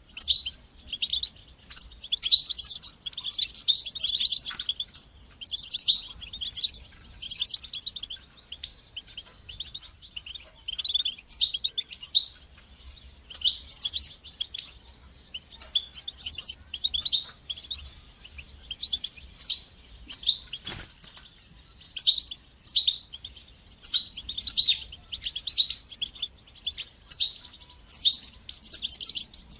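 European goldfinch singing: rapid twittering phrases of high, quick chirps and trills in bursts, each broken by short pauses.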